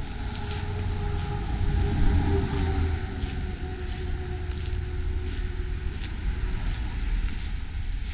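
Footsteps crunching on gravel at a slow walking pace, with low wind rumble on the microphone and a faint steady engine hum that sags slightly in pitch.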